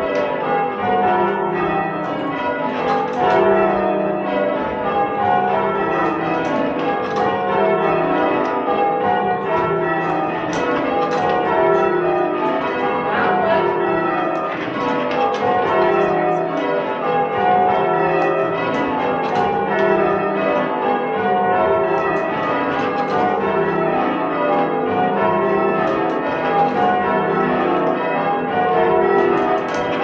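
Church tower bells being change-rung: the bells strike one after another in rows that mostly run down in pitch from the highest bell to the lowest. A new row starts about every two seconds in a steady, continuous rhythm.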